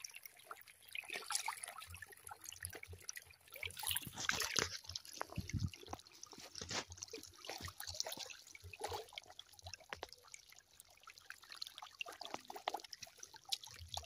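Many tilapia churning and splashing at the surface of a crowded pond as they feed, a constant irregular patter of small splashes.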